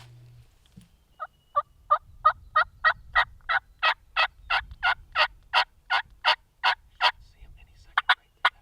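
Turkey yelping: a long run of about seventeen evenly spaced yelps, roughly three a second, growing louder, then three short, sharp notes near the end.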